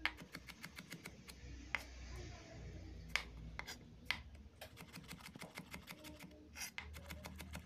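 Kitchen knife slicing through tomatoes and tapping the wooden cutting board: faint, quick taps several a second, with a few sharper knocks.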